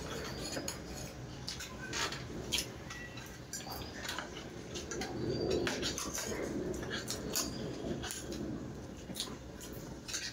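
Metal forks clicking and scraping on ceramic plates while spaghetti is eaten, with a stretch of noodle slurping about halfway through.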